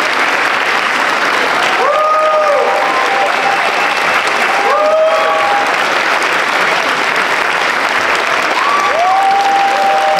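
Audience applauding steadily, with voices calling out over the clapping three times in short, held calls.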